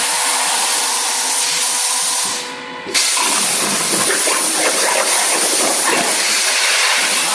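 Hypertherm Powermax 125 plasma arc hissing steadily as a CNC plasma torch cuts metal. The hiss dips for about half a second just before the three-second mark and comes back abruptly, as when the arc goes out and re-strikes for the next cut.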